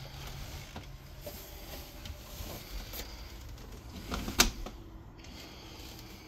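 Scattered light clicks and knocks from footsteps and handling of an interior door while walking through a fifth-wheel trailer, with one sharp knock a little over four seconds in.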